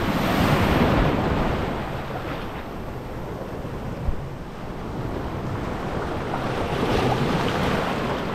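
Small surf breaking and washing up the shore, with wind on the microphone. The wash swells at the start, eases off, then builds again toward the end. There is one brief knock about four seconds in.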